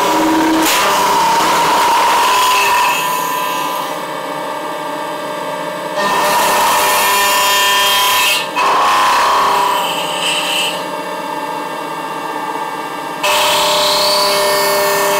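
CNC milling machine's spindle and end mill cutting into a plastic wire spool wound with brass wire. The cutting noise gets loud three times, for a few seconds each, and eases to a quieter running in between.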